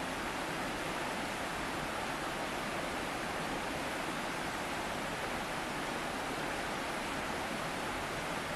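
Mountain stream water rushing over rocks, a steady even rush.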